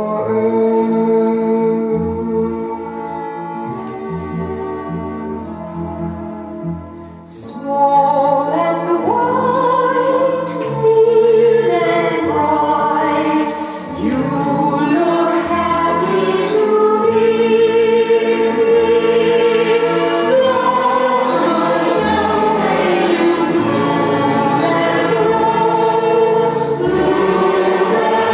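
A choral record playing over large hi-fi loudspeakers, many voices singing together. It softens to a quiet passage about a quarter of the way in, then swells back fuller and louder.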